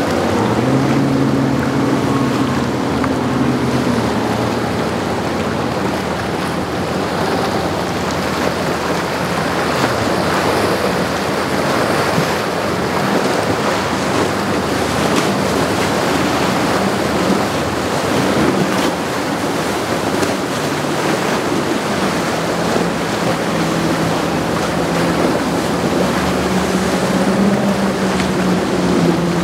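Surf and wind noise from rough inlet waves, with the Mercury outboard of a Caravelle 17 EBO bowrider running underneath. The engine hum comes through clearly in the first few seconds and again in the second half, rising in pitch near the end.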